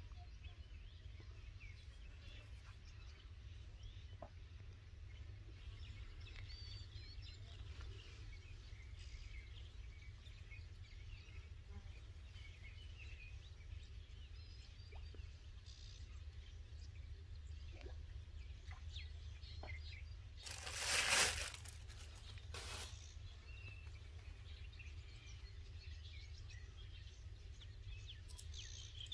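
Quiet waterside ambience: faint scattered bird chirps over a steady low rumble. About two-thirds of the way through comes a short, loud rustle or crunch, with a smaller one just after it.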